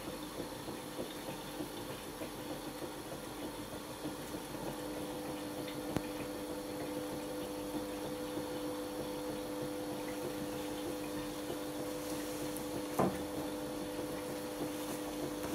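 Hotpoint Aquarius+ FDW70 dishwasher running a wash cycle: water swishing inside, joined about five seconds in by a steady pump hum. A short click comes shortly after, and a sharper knock near the end.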